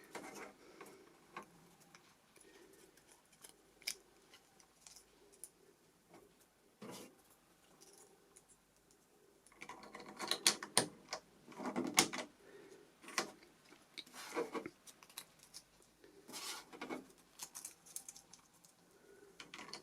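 Light, scattered plastic clicks and handling noises as clear plastic covers on a cash register's raised keys are lifted off and pressed back on over paper key inserts. The clicks come more often in the second half.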